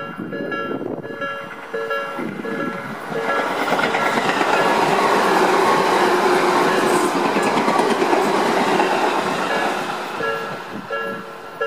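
Japanese level-crossing alarm bell ringing a steady two-tone chime, about one and a half strikes a second. From about three seconds in, a Tobu 10030 series electric train runs past and its loud running noise covers the bell. The train noise fades near the end and the bell is heard again.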